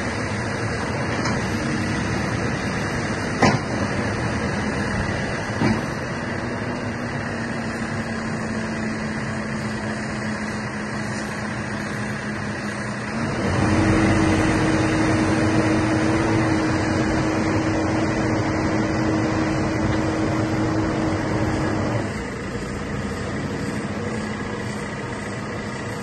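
JCB 3CX backhoe loader's diesel engine running while the loader is worked. About halfway through the engine note steps up higher and louder for several seconds, then drops back. Two sharp knocks come in the first few seconds.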